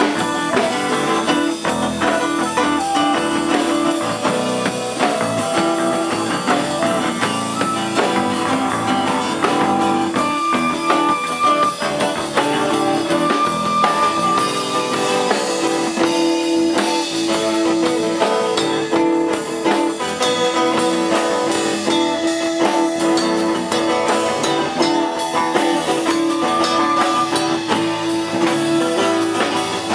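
A live band playing a song: acoustic guitar, flute, electric bass and drum kit together, with a steady beat.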